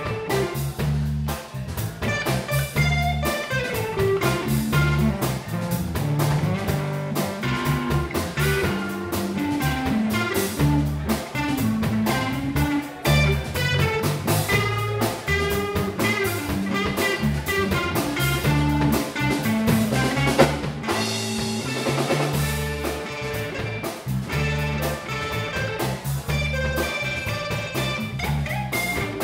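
Live electric blues instrumental: lead electric guitar playing a solo full of sliding, gliding notes over a bass guitar line and a drum kit. About 20 seconds in there is a sharp accent, and the bass and drums drop out for about a second.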